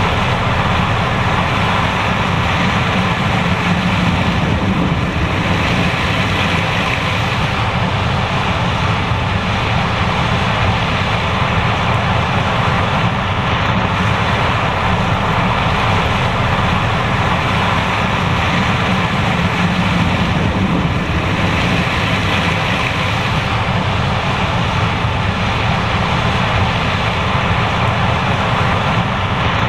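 John Deere S780 combine harvester running steadily under load while harvesting corn, a loud continuous machine drone with no breaks.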